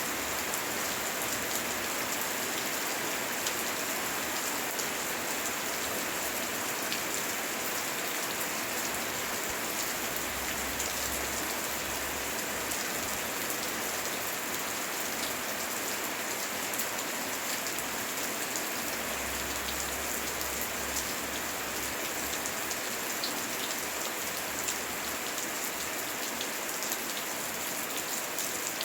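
Heavy rain falling steadily, a dense hiss with single drops ticking out sharply through it. A faint low rumble swells twice, around a third of the way in and again about two-thirds through.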